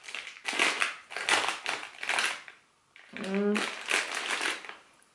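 Plastic snack pouch crinkling as it is pulled and torn open by hand, in bursts over the first two and a half seconds and again around four seconds. A short voice sound comes about three seconds in.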